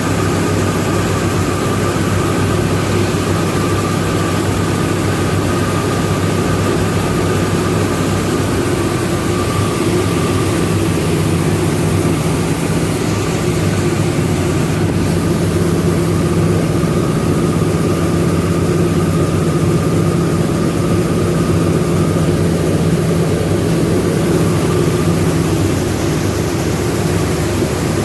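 Rice milling machinery running steadily: a loud, constant mechanical drone with a steady hum.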